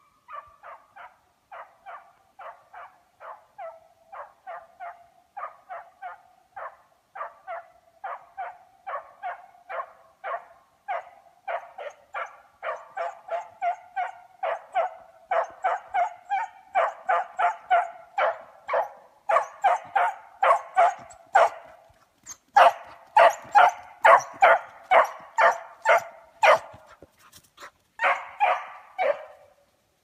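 A scent hound giving voice on a hare's trail: quick barks at about two a second, growing steadily louder as it comes closer. After a short break comes a louder run of barks, then one last brief burst that stops near the end.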